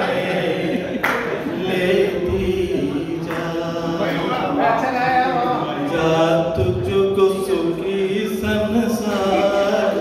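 A man singing unaccompanied through a microphone and PA in a large hall, with long held, wavering notes.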